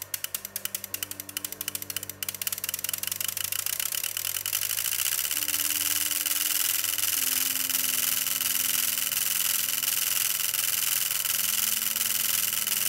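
Bank of relays in a relay-built arithmetic-logic unit clicking as it computes. The clicks come a few a second at first, then speed up about two seconds in into a rapid, continuous chatter.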